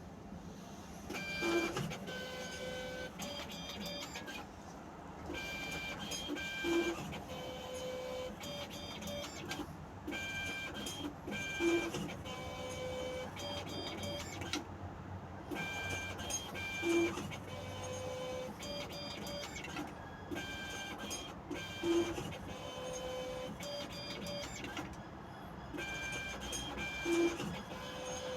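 Self-service railway ticket machine printing a run of tickets. The print mechanism whirs and whines in short stepping runs, in a cycle that repeats about every five seconds, with a low thud in each cycle.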